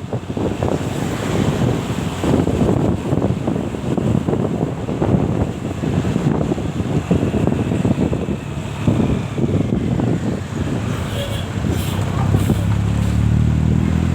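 Wind buffeting the microphone over traffic noise; about ten and a half seconds in, a vehicle's engine comes in as a low, steady hum and holds.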